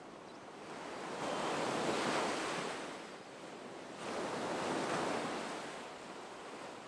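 Baltic Sea waves washing onto the shore: two waves about three seconds apart, each swelling up and fading away, over a steady hiss of surf.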